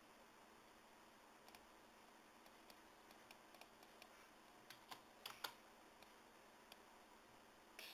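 Faint, irregular clicking of a computer keyboard and mouse, a few clicks a second, a little louder in the middle, with a brief louder rustle at the very end.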